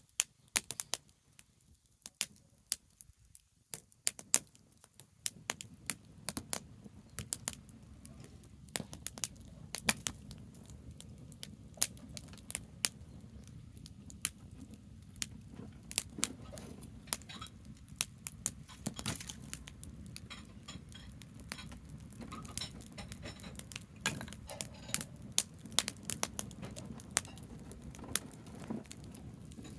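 Branch campfire crackling, with many sharp, irregular pops and snaps. A low, steady rumble joins underneath about five seconds in.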